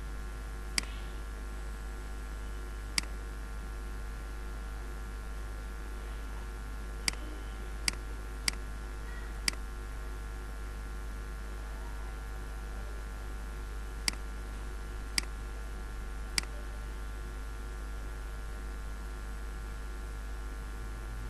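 Computer mouse button clicking about nine times at irregular intervals, with a quick run of four clicks around the middle, over a steady low electrical hum and hiss.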